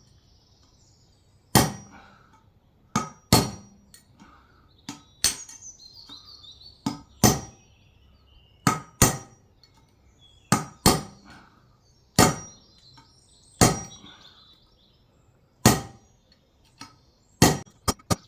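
Hammer tapping a punch to drive a wheel bearing race out of a Land Rover Defender hub, working gently round the race. Sharp metallic strikes come every second or two, often in pairs, then quicken into a fast run of taps near the end.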